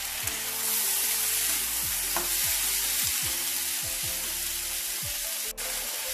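Chopped tomatoes and onions sizzling in hot oil in a frying pan while they are stirred together. The sizzle grows a little louder about a second in.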